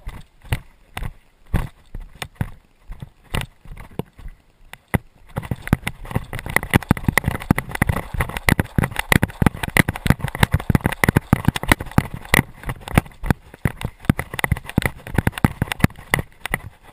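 Footsteps walking, about two steps a second. From about five seconds in they give way to a louder, denser run of steps with a rustling noise.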